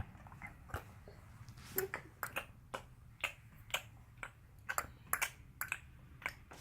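A baby making a series of sharp tongue clicks with her mouth, irregular, about two or three a second.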